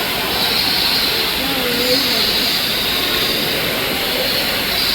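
Steady rushing of an indoor waterfall, with faint voices in the background about two seconds in.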